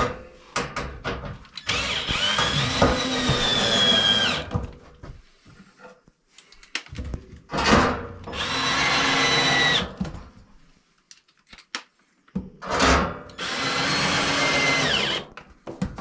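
Cordless drill driving screws through a sheet-metal heat shield into a wooden wall: three runs of about two to three seconds each, the motor's whine dropping in pitch as each screw seats. Short clicks and knocks between the runs.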